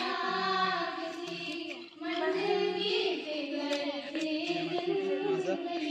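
A song: a singing voice holding long, wavering notes over music with a repeating low bass line.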